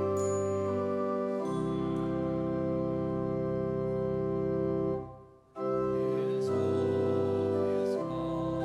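Organ playing slow, held chords, changing chord about a second and a half in, with a brief break about five seconds in before the next phrase begins.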